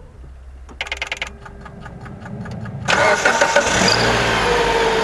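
Mitsubishi Outlander engine being started: clicking and a faint steady hum about a second in, then about three seconds in the engine fires and settles into a steady fast idle. There is no drive-belt squeal; the belt dressing spray has cured it.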